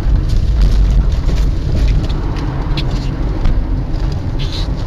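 Steady low rumble of a car's engine and tyres on the road, heard inside the cabin while driving, with a few faint ticks.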